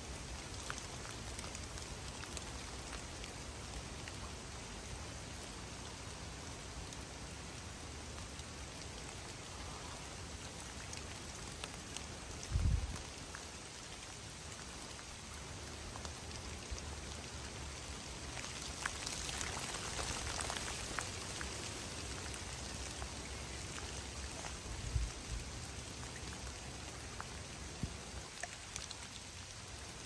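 Steady rain falling on a river's surface, an even hiss dotted with close, sharp drop ticks, swelling a little about twenty seconds in. Two brief low thumps, about twelve and twenty-five seconds in, are the loudest moments.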